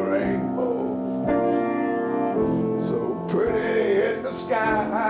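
Grand piano playing slow, sustained jazz ballad chords. Over them comes a man's wordless vocalising with vibrato, once about midway and again near the end.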